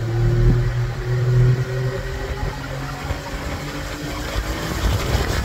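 1983 Evinrude 70 hp two-stroke outboard motor running at about half throttle, with slow throttle response from a throttle the owner finds sticking. Its deep steady drone weakens about two seconds in.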